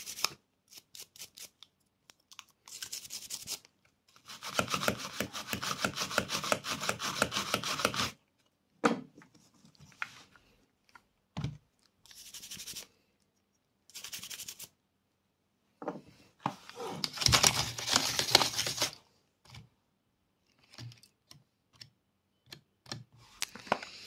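A small brush scrubbed over laptop RAM modules to clean them: bursts of quick, scratchy brushing strokes that stop and start, with two longer, louder spells of brushing.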